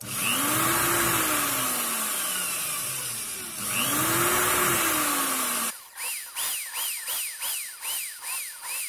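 Corded electric drill boring holes into a wooden block: two runs, the motor whine rising and then sagging in each. Near the end comes a quick regular series of short rising-and-falling chirps, about two or three a second.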